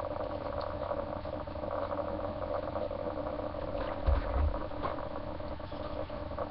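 Clear plastic packaging crinkling and rustling as a toy doll is handled and picked at, over a steady hum, with a dull low thump about four seconds in.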